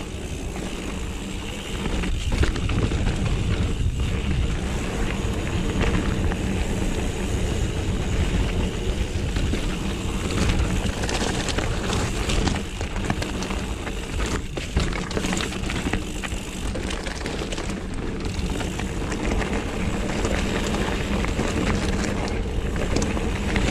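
Mountain bike rolling along a dirt trail: a steady rushing noise of tyres on dirt and rock with wind on the camera microphone, broken by a few brief knocks over bumps.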